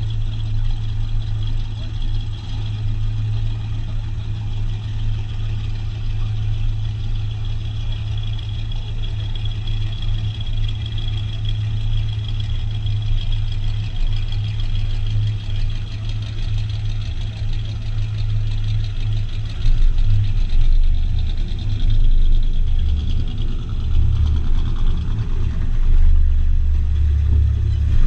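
Car engine running with a steady low drone while driving. It grows louder and more uneven in the last several seconds.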